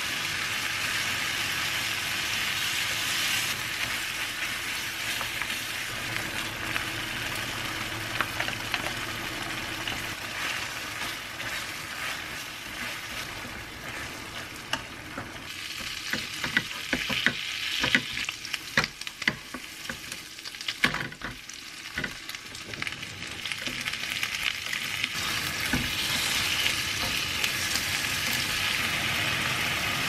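Food sizzling in a hot frying pan on a gas stove, a steady hiss. In the middle, as garlic is stirred in melted butter with chopsticks, a run of sharp crackles and clicks stands out over the sizzle.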